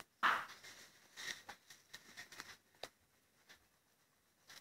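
Green crayon scratching and tapping lightly on drawing paper as a tree's crown is coloured in, with a brief louder rustle about a quarter of a second in and scattered small clicks; the last second or so is nearly quiet.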